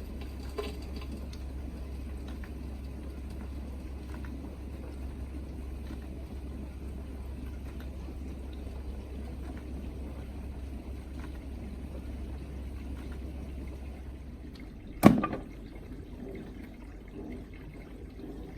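Bosch dishwasher mid-cycle: a steady low pump hum under the swish of water sprayed inside the tub. About fifteen seconds in, a single loud thump, after which the hum drops away and quieter water sounds go on.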